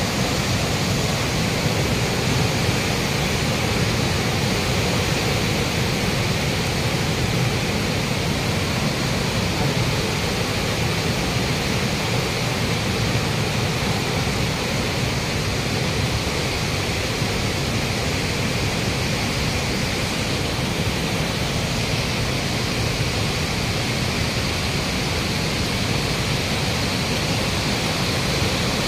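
River in flood, fast water rushing past in a steady, unbroken rush of noise.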